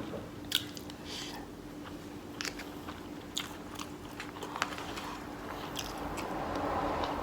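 Close-up chewing and mouth clicks of someone eating food, with a faint steady hum underneath and a soft swell of noise near the end.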